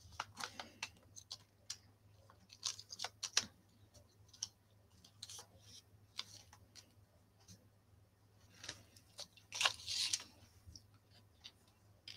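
Hands handling small die-cut paper pieces on a glass craft mat: scattered light clicks and taps with short paper rustles, the loudest rustle about ten seconds in.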